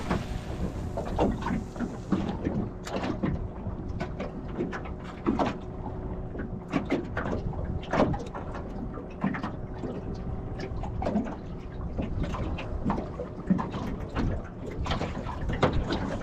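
Water slapping against a small boat's hull, giving irregular knocks and splashes over a steady low rumble of wind on the microphone.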